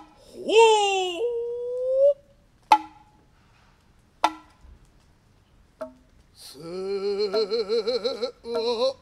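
Kotsuzumi shoulder drum player's long kakegoe call, which swoops up and then holds. It is followed by two sharp, ringing drum strokes and a soft third one. Noh chanting (utai) with a wide, wavering vibrato starts about two-thirds of the way through.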